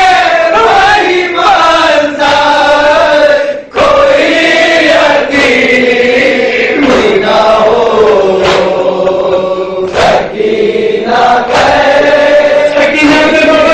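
Nauha: a male reciter chanting a Shia lament through a microphone, a group of men's voices joining him on long, held, gliding lines. A sharp slap comes about every second and a half, the beat of matam (chest-beating).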